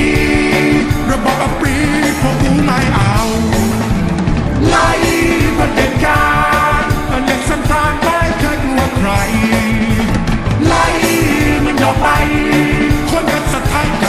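A rock song with a steady beat and a singing voice.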